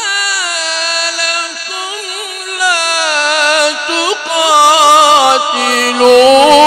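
Quran recitation in melodic tajweed style: a single reciter's voice holds long, drawn-out vowels with wavering ornaments, stepping lower in pitch toward the end.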